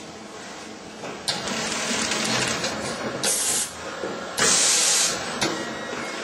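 Automatic film-packaging machine running, growing louder about a second in. Two loud hisses come near the middle: a short one a little after three seconds and a longer one at about four and a half seconds.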